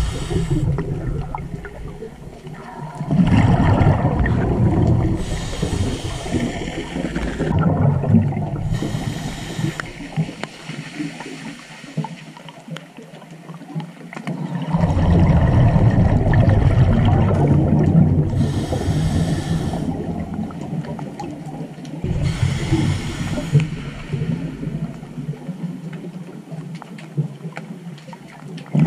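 Scuba diver breathing through a regulator underwater: long rumbling, bubbling exhalations broken by four short hissing inhales.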